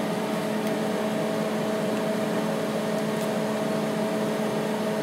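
Steady hum of a small motor or fan, with a few even tones held throughout, and two faint light clicks, one just under a second in and one about three seconds in, as the toaster is handled.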